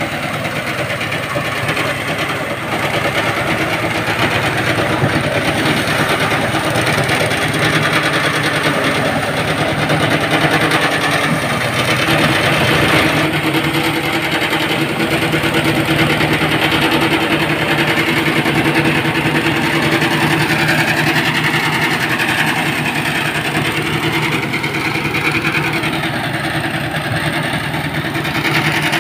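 Engine-driven portable rice thresher running steadily, its engine droning at an even speed under the whir and rattle of the threshing drum.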